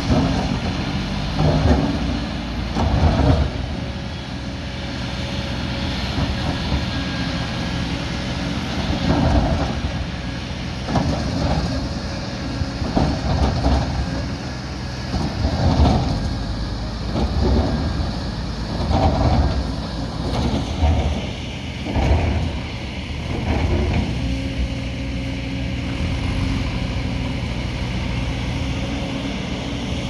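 Diesel engines of a crawler excavator and a backhoe loader running steadily, with repeated loud scrapes and clunks from a bucket working soil and rock every second or two. The clunks stop a little over twenty seconds in, leaving the engine drone.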